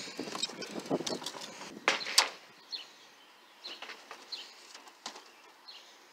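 Knocks and scrapes of framed pictures being tipped forward and flipped through in a leaning stack, loudest about two seconds in. After that it goes quieter, with a few faint bird chirps.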